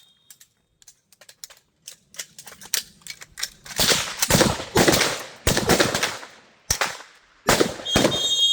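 A line of rifles firing during a malfunction drill. Light clicks and metallic handling noises come first as the shooters try to fire and clear their rifles. From about four seconds in there are many loud, overlapping rifle shots with echoing tails. An electronic shot-timer beep sounds near the end.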